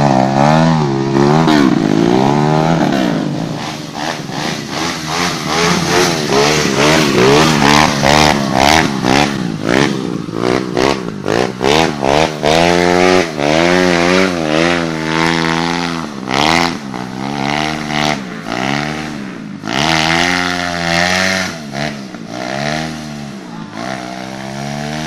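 Trail motorcycle engine revved hard again and again, its pitch rising and falling in quick surges, while the rear wheel spins in mud on a steep hillclimb.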